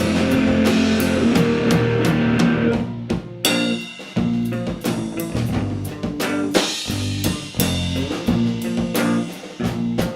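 Live rock band playing an instrumental passage on guitar and drum kit. About three seconds in, the full sound drops away to sparser, stop-start chords and drum hits.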